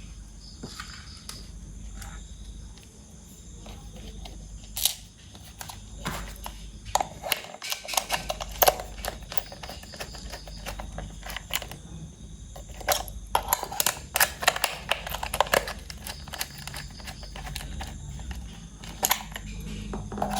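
Hands handling plastic toy parts and packaging: irregular clicks, taps and rustles, coming thicker in the second half.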